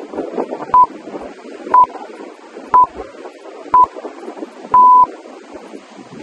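Electronic countdown beeps of a workout interval timer: four short beeps about a second apart, then one longer beep marking the start of the next exercise. Wind on the microphone and surf run underneath.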